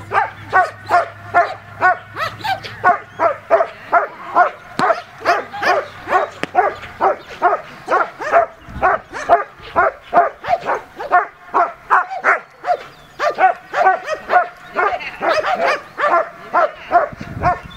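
German Shepherds barking rapidly and steadily at a protection-training helper, about two to three barks a second, with a second dog's barks overlapping toward the end.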